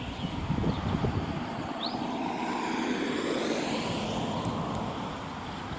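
Road traffic: a vehicle driving past, its engine and tyre noise swelling slightly and easing off.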